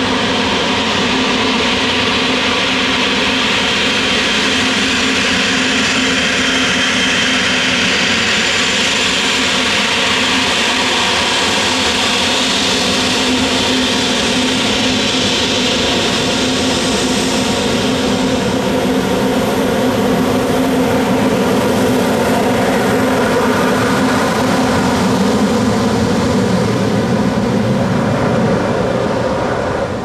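Embraer 195's twin GE CF34-10E turbofan engines running at low taxi power as the jet rolls past close by, a steady whine over a rushing noise. A little over halfway through the high whine fades as the aircraft turns away, leaving a lower exhaust hum.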